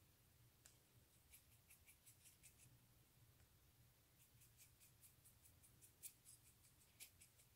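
Near silence, with faint scattered soft ticks from a small paintbrush dabbing pearl dust onto a gum paste petal.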